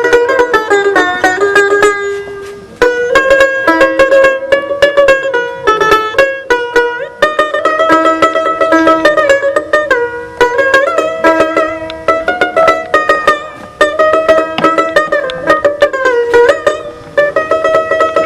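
Dotara, a Bengali folk plucked lute, played solo: fast plucked notes in repeating melodic phrases, with some notes sliding in pitch. The playing eases off briefly about two seconds in, then picks up again.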